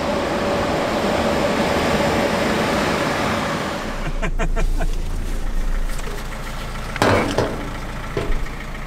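A steady rushing noise. About four seconds in it gives way to a vehicle's engine idling low inside the cab, with a few clicks and a sharp thump about seven seconds in.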